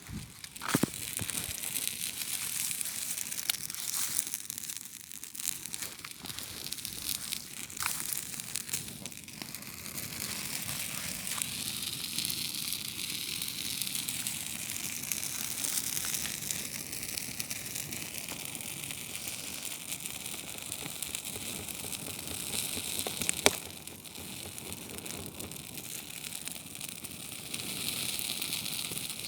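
Campfire burning, the wood crackling with many small pops over a steady hiss, and one sharper pop about three quarters of the way through.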